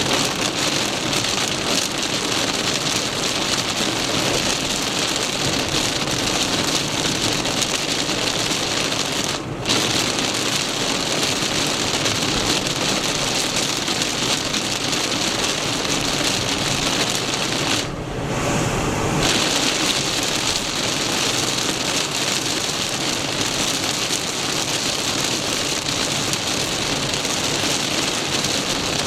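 Torrential downpour hitting a moving car, heard from inside as a loud, steady rush. The rain noise drops out briefly twice, once about nine seconds in and again for about a second around eighteen seconds in.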